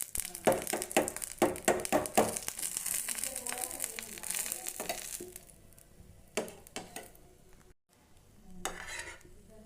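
Cooking in a pan: a quick run of spatula knocks and scrapes, then a steady sizzling hiss for a couple of seconds. A couple of single knocks follow, and a short hiss comes near the end.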